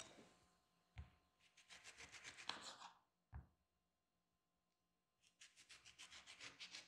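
A kitchen knife sawing through an orange's peel and flesh on a wooden cutting board: two runs of quick rasping strokes, about ten a second, with a couple of low knocks of the blade or fruit against the board.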